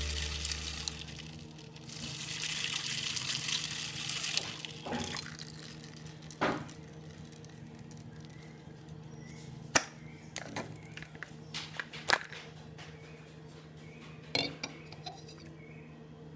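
A 12 V DC motor spinning a soda can in ice water winds down and stops. A couple of seconds of sloshing and swishing water follow. Then ice cubes clink sharply against the aluminium can several times as it is lifted out of the ice water.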